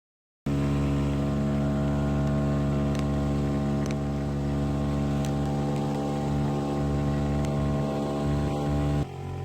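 Small 4.9 hp Mercury outboard motor on an inflatable boat running at a steady speed, starting about half a second in and cutting off abruptly near the end.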